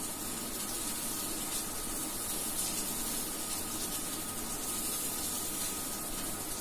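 Steady, even background hiss with a faint thin hum running through it.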